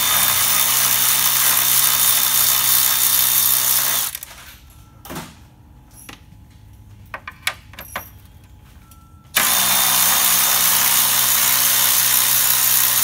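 Cordless electric ratchet with a socket extension spinning out the intercooler cover's bolts. It runs twice, about four seconds each time, with a steady motor hum. Between the runs come a few light clicks and taps as the tool is moved to the next bolt.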